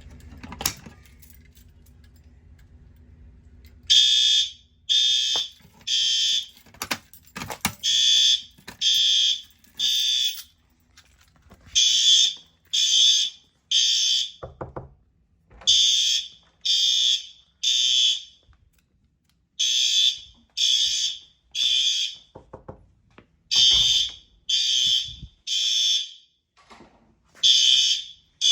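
Fire alarm horns, System Sensor L-Series horn strobes on a Fire-Lite ES-50X panel, start sounding about four seconds in. They sound the temporal-3 evacuation pattern: three half-second high-pitched blasts, a pause, then three again, repeating. A few sharp clicks come before the horns start.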